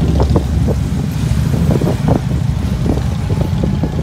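Motorcycles riding past in a procession with a car passing close by: a steady low engine rumble.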